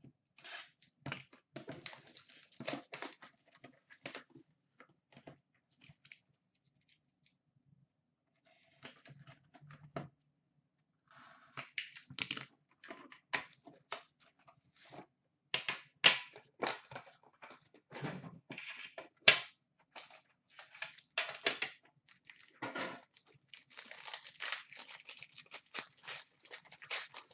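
Hands opening a cardboard box of hockey trading cards: irregular clicks and taps of the cardboard, then tearing and crinkling of the packaging, busiest near the end, with a lull of a few seconds in the middle.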